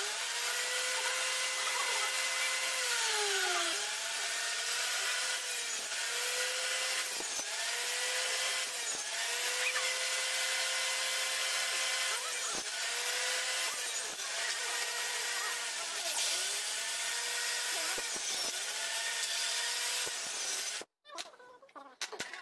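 Improvised table saw, a circular saw blade running up through a slot in a plank, ripping thin plywood boards. It makes a high whine whose pitch sags each time the blade bites into the wood, over a dozen or so cuts, and it cuts off abruptly near the end.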